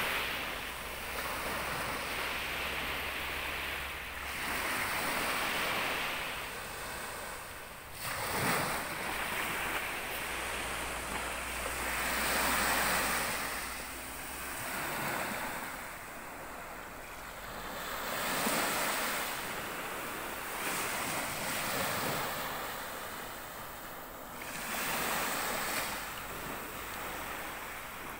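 Small waves breaking gently on a beach, each washing up the shore and drawing back, a new one every four seconds or so.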